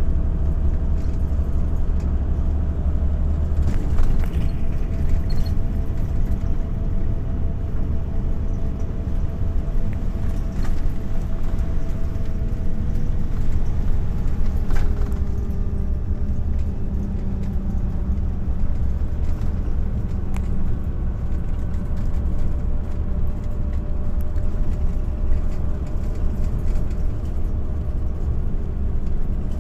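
A motor vehicle running: a steady low rumble with a few faint clicks.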